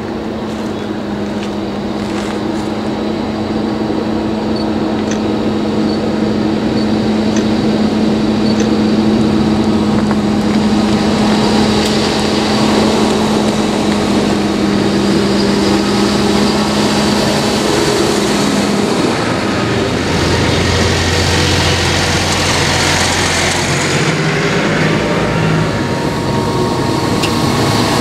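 A line of modern farm tractors driving past, their diesel engines running steadily with tyre noise on the road. The sound grows louder over the first several seconds as they approach, and about two-thirds of the way through a lower engine note takes over as a tractor passes close.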